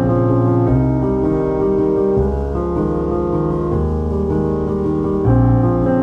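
Background music led by piano, sustained chords changing about every second and a half.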